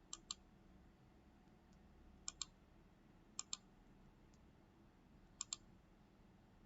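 Computer mouse clicking in quick pairs, four pairs a second or two apart, over near silence.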